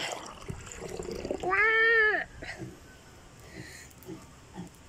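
Coconut water poured from an opened young coconut into a glass, then one drawn-out animal cry, rising and falling in pitch, about a second and a half in; the cry is the loudest sound.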